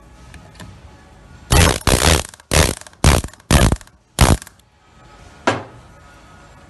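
Yokota YDP-13 air-powered dowel pin puller hammering a threaded dowel pin into a mould plate. It goes in six short, loud bursts about half a second apart, then one fainter burst about a second later.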